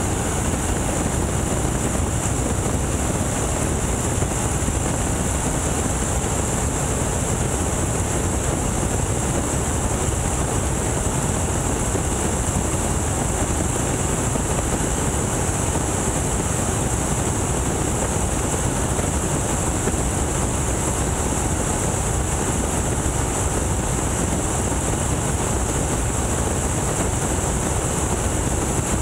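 Boeing Stearman biplane's radial engine and propeller running steadily in flight, mixed with wind rushing past the open cockpit.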